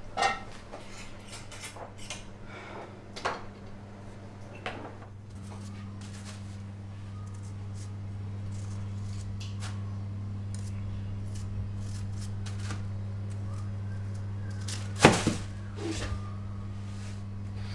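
Kitchen room tone: a steady low hum that grows a little louder about five seconds in, with scattered light clicks and scrapes. One louder knock comes about fifteen seconds in.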